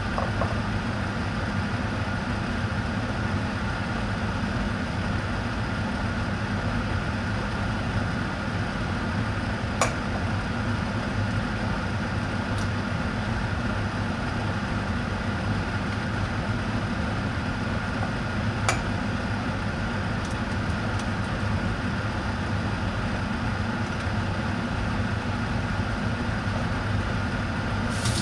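Steady mechanical hum of a running kitchen appliance, with a few light clicks about ten and nineteen seconds in.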